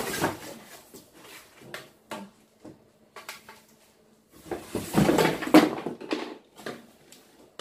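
Handling noise from unpacking a table out of a cardboard box: cardboard flaps and plastic wrapping rustling, with knocks as the tubular table legs are lifted out. The busiest and loudest stretch comes about five seconds in.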